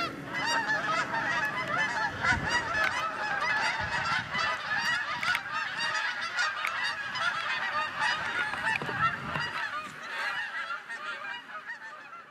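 A large flock of Canada geese honking, many calls overlapping into a continuous din that fades out near the end.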